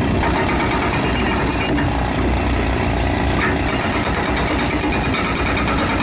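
Hydraulic breaker hammer on an excavator arm pounding rock, a rapid, steady hammering.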